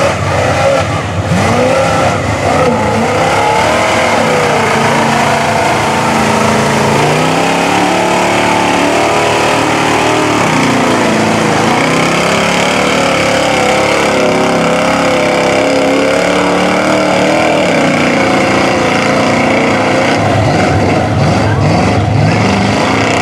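Lifted square-body Chevrolet pickup engines revving hard through a mud bog pit, the pitch rising and falling again and again as the big tires spin and churn through mud and water.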